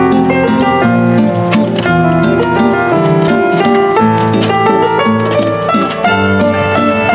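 Background music: a plucked-string instrumental, its notes changing quickly at a steady level.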